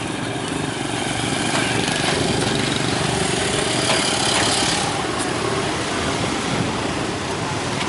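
Small motor scooter engines running as several scooters ride off a ferry ramp and pass close by. The sound is loudest in the middle, as one passes nearest.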